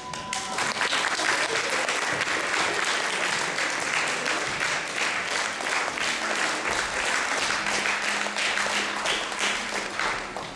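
Audience applauding, a steady dense clapping that dies down near the end.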